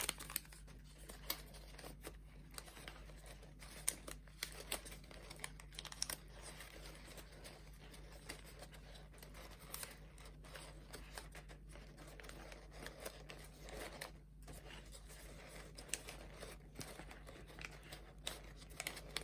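Folded origami paper crinkling and rustling in faint, irregular small crackles as hands work the last units into a 30-unit kusudama ball.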